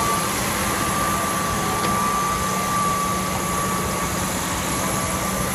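Large farm tractor's diesel engine running hard under load, pulling the sled down the track, with a steady high whine over the engine noise for the first few seconds.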